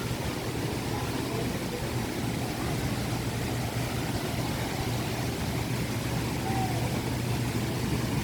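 Waterfall's rushing water, a steady roar of falling water with a low rumble underneath.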